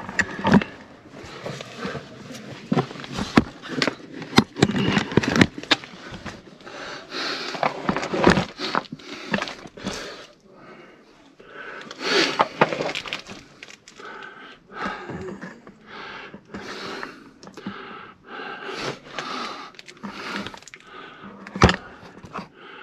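Irregular scraping, crunching and clicking of grit and rubble as a man squeezes and crawls through a narrow hole in a ruined wall, with his clothing rustling and his hard breathing.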